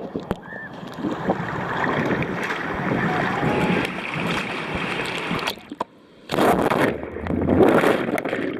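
Ocean surf washing and churning close to the microphone. About six seconds in the sound drops away for a moment, then a louder rush of water follows.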